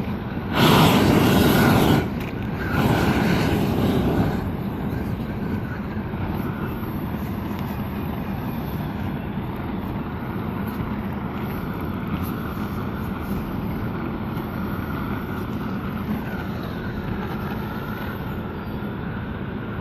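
Gas roofing torch burning with a steady rushing roar, turned up louder twice in the first few seconds.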